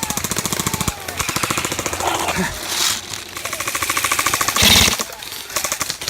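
Airsoft electric guns firing long full-auto bursts, a fast, even rattle of shots, with a louder noisy burst about three-quarters of the way through.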